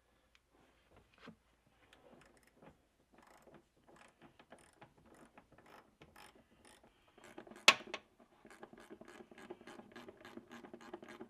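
Hand socket ratchet clicking as a bolt is turned: scattered faint clicks at first, then a quicker, even run of about four clicks a second, with one sharper click about seven and a half seconds in.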